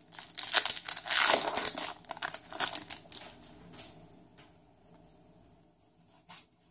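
Foil wrapper of a Yu-Gi-Oh! booster pack crinkling as it is torn open, busiest and loudest in the first three seconds and then fading, with a few faint clicks later on.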